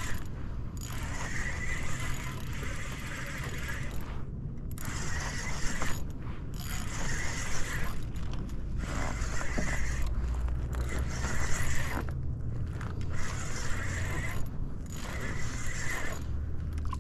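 Conventional fishing reel being cranked in spurts of a second or more with short pauses between, its gears whirring and clicking as a sabiki bait rig strung with small fish is wound up.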